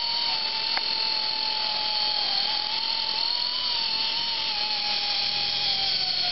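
Handheld cutoff tool's abrasive wheel grinding through the steel end shaft of an electric motor. It makes a steady high whine over a lower tone that wavers and drops a little near the end.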